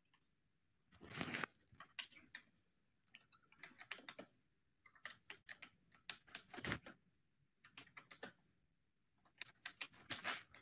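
Faint clicking of a computer keyboard being typed on, in short runs broken by silent gaps, with a couple of louder knocks about a second in and near seven seconds.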